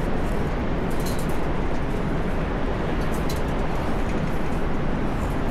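Steady road and engine noise inside a moving car, a low rumble with a few faint light rattles.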